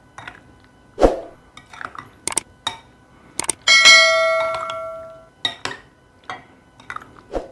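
Kitchen utensils knocking and clinking against dishes, with one strike about halfway through that sets metal ringing like a bell for over a second as it fades.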